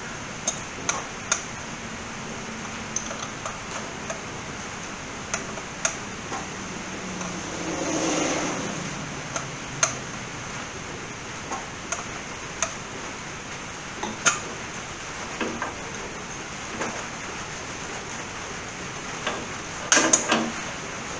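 Scattered light metallic clicks and taps of hand tools on a carburetor, with a quick cluster of clinks near the end as an open-end wrench is worked on its fittings. About eight seconds in, a brief rushing swell with a falling hum passes.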